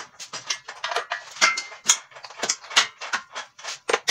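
Irregular metal clinks and knocks, several a second, as a steel shaft is slid and fitted into the steel frame of a home-built band saw mill.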